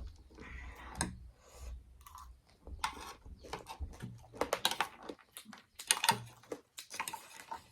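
Close-miked crunching and chewing of hard, crunchy food, a quick irregular run of crisp crunches that gets denser and louder in the second half; the food is hard enough to need strong teeth.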